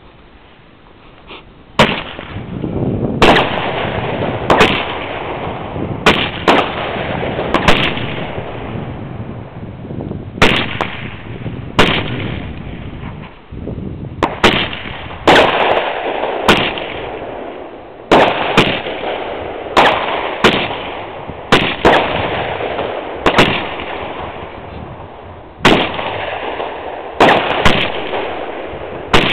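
Large fireworks compact (multi-shot cake) firing in sequence: from about two seconds in, a sharp bang every second or so, sometimes two in quick succession, over a steady rushing noise from the burning effects.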